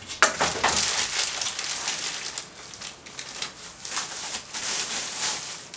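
Plastic packaging bag rustling and crinkling as it is handled, in irregular scrunches.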